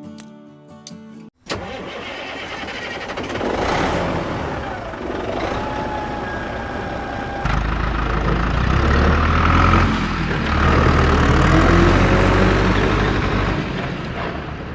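An engine starting and running amid a noisy background, with a deep, steady rumble setting in about halfway through.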